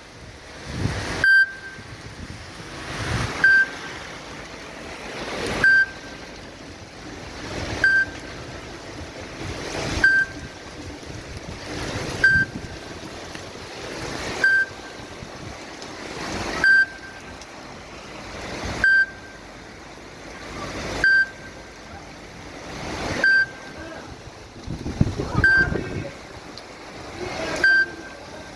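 Steady rain falling, with a short, sharp, beep-like blip repeating about every two seconds, each blip preceded by a brief swell of noise; the blip is the loudest sound.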